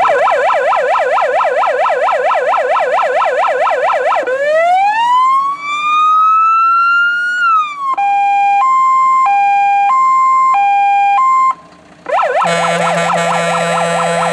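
Fire engine's electronic siren cycling through its tones: a fast warble of about four sweeps a second, then a wail that rises, holds and falls away, then a two-tone hi-lo. It cuts out briefly near the end and comes back as the fast warble, with a low steady tone joining it.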